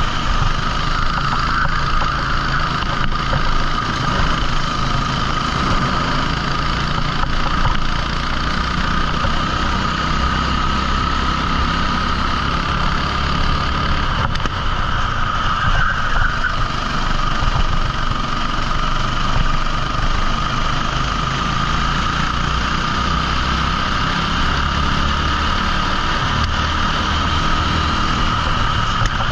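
A 14 hp rental kart engine running continuously at racing revs, its pitch rising and falling slightly.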